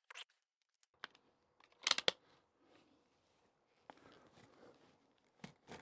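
Quiet clicks and rustling from handling the rifle and its .22 rimfire ammunition, with a sharp double click about two seconds in and another near the end; no shot is fired.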